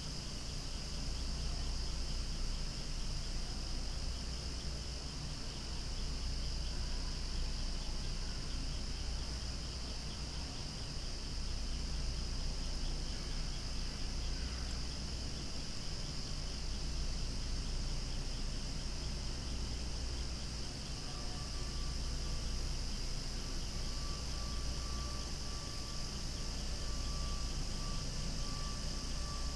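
Cicadas singing loudly in a dense, continuous chorus, a steady high-pitched drone, with a low rumble underneath.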